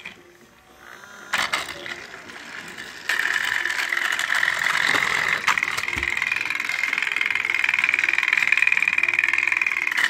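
Motorized toy train's small electric motor and plastic gears switched on about three seconds in and then whirring steadily. A few clicks and a thump from handling are heard over it.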